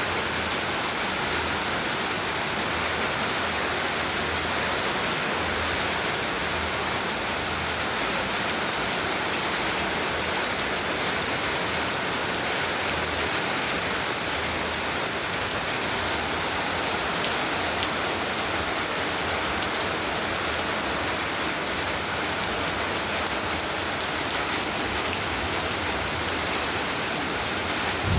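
Steady heavy rain falling, an even hiss of many drops on surfaces with no let-up.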